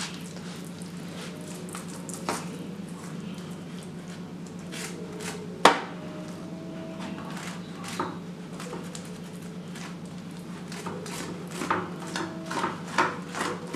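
A wooden spoon spreading tomato sauce over pizza dough in a baking tray: scattered light clicks and taps, a sharper knock about six seconds in and a quicker run of clicks near the end, over a steady low hum.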